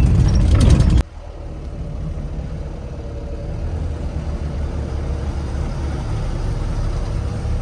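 Vehicle on the move, a steady low rumble of engine and road noise. About a second in, a louder, busier passage cuts off abruptly.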